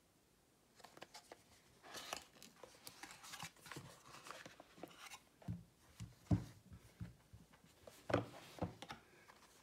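A cardboard phone box being opened by hand: small clicks, then paperboard rubbing and scraping as the inner tray slides out. Several soft knocks follow, the loudest about six and eight seconds in, as the box and the smartphone are set down on a table.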